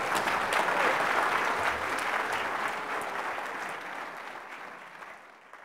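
Audience applauding, fading out over the last couple of seconds.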